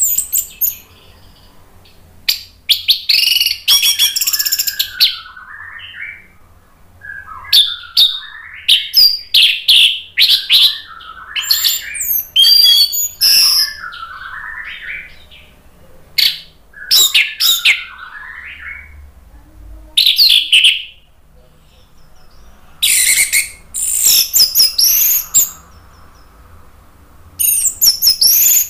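Orange-headed thrush (anis merah) in full, loud song: varied phrases of rapid, high gliding notes, each a second or so long, with short pauses between them.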